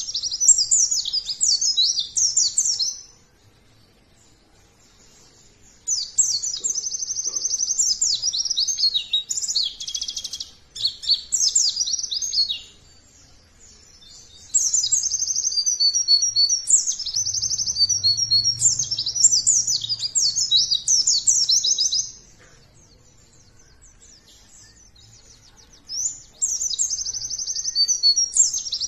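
White-eye (pleci) singing in rapid, high twittering song, in bouts of several seconds broken by pauses of two to four seconds.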